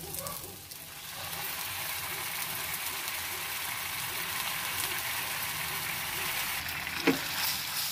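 Sauce of soy sauce, oyster sauce and calamansi juice poured into a hot pan of sautéed onion rings, setting off a steady sizzle that builds about a second in. A single sharp knock near the end.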